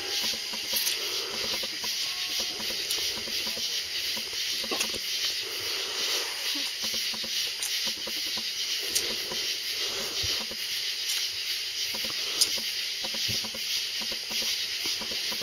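A steady high hiss, with two faint ticks about nine and twelve seconds in.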